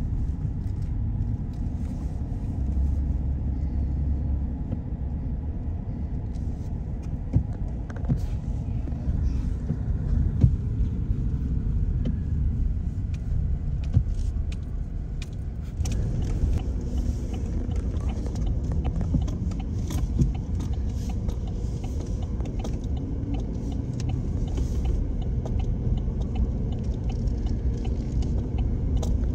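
Car on the move: a steady low rumble of engine and road noise, with scattered small clicks and rattles.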